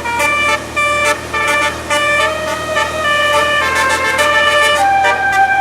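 Telolet basuri musical air horn playing a melody in short stepped notes, several horn tones sounding together, with a few longer held notes near the end. A steady low hum runs beneath.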